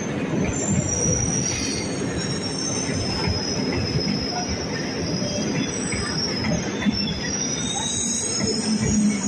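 Chennai suburban electric local train running past on the rails: a steady rumble of wheels on track with high, thin, wavering wheel squeal throughout.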